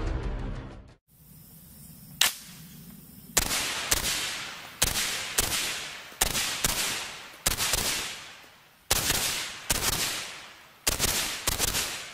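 Bushmaster ACR semi-automatic rifle with a suppressor fitted, fired as a string of single shots, often in quick pairs, each followed by a ringing echo.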